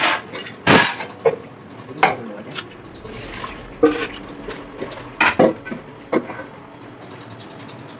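Kitchenware being handled on a counter: a metal pot and plates knocking and clinking several times, the loudest knock about a second in.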